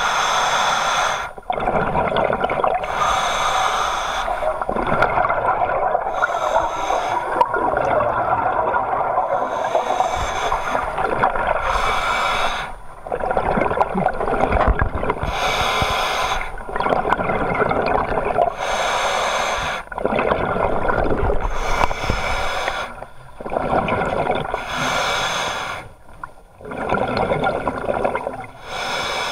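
Scuba diver breathing through a regulator underwater: a hissing inhale through the demand valve alternating with a gurgling, bubbling exhale. The breaths come in slow cycles of a few seconds, with short pauses between them.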